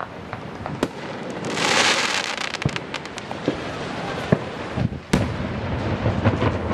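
Fireworks going off: scattered pops and bangs, with a hiss lasting about a second around two seconds in and a sharper, louder bang just after five seconds.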